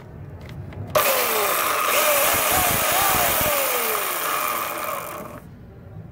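Homelite 16-inch corded electric chainsaw running with no load: it starts suddenly about a second in, runs for about four seconds, then winds down and stops.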